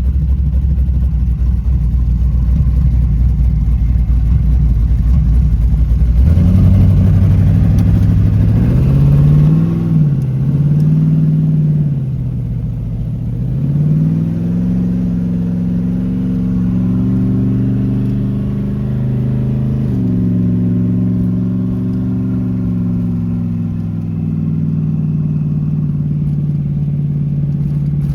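Chevy Vega wagon's V8 engine under way: a low rumble, then from about six seconds in the engine note climbs and drops back a few times as it accelerates and shifts, before settling into a steady cruise.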